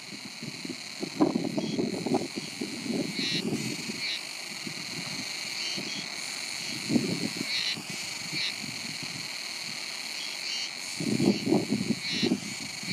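Outdoor ambience of a steady shrill insect chorus, with short chirps every second or two. Wind gusts buffet the microphone for the first few seconds and again near the end.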